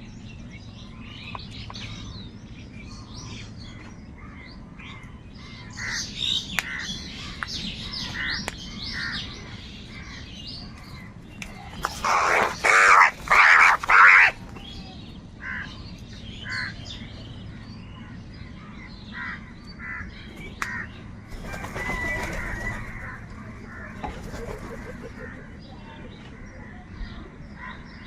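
Crows cawing among other chirping birds, with a run of four or five loud, harsh caws in quick succession around the middle.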